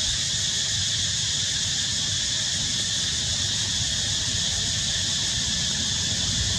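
Steady, high-pitched insect chorus, unchanging throughout, with a low rumble underneath.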